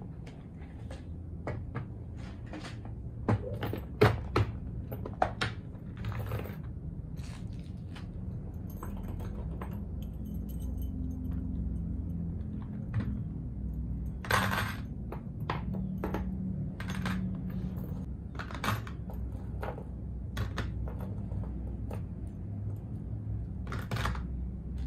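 Small metal bag fittings, D-rings and swivel snap hooks, clinking and clicking against each other and a plastic compartment box as they are picked up and dropped in by hand. The clicks come irregularly, with a few louder clacks a few seconds in, over a low steady hum.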